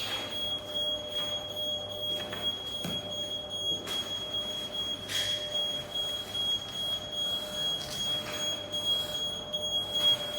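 A fire alarm system gives a steady, high-pitched electronic tone during an alarm test, just after the main alarm sounder has stopped. A low hum under it stops about five seconds in.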